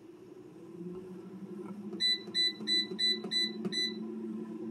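Crownful air fryer's control panel beeping six times in quick succession, about three beeps a second, as its buttons are pressed to change the time setting. Under the beeps is a steady hum from the air fryer's fan, which starts up and builds over the first second.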